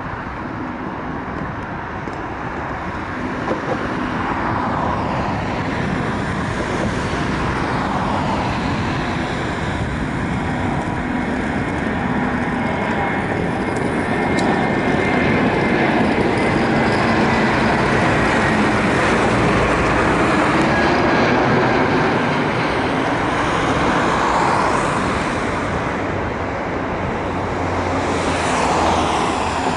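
Airbus A320 jet airliner on its landing run, its engines giving a steady rushing roar with a faint whine that swells to a peak midway and then eases.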